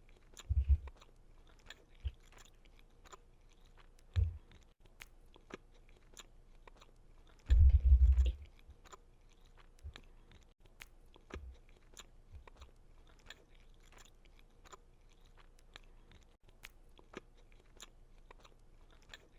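People chewing bites of a white chocolate chip cookie, with many small mouth clicks and smacks. A few dull low thumps come in, the loudest about eight seconds in.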